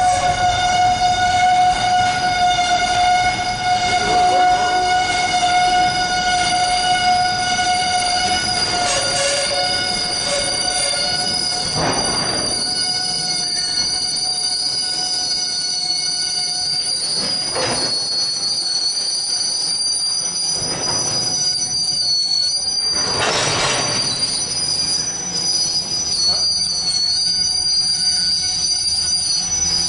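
Freight train's cars of blue waste containers rolling past, the steel wheels squealing in a steady high ring of several tones. Three brief louder clatters come about 12, 17 and 23 seconds in.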